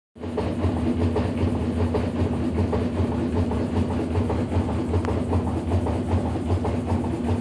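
Top-loading washing machine in its spin cycle, making a fast, even low thumping over a steady motor hum. The owner likens the noise to a helicopter; the fault is worn suspension rods.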